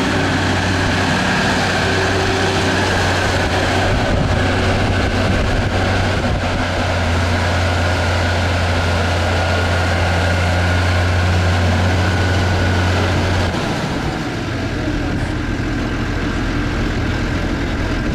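Tractor engine running steadily with a low hum, which drops to a lower, quieter note about three-quarters of the way through.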